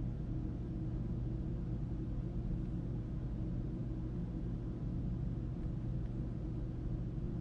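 A steady low mechanical hum, unchanging throughout.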